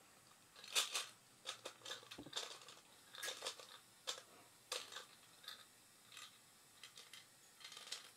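Faint, irregular clicks and light rattles of small plastic toy pieces being handled, about a dozen in a few seconds.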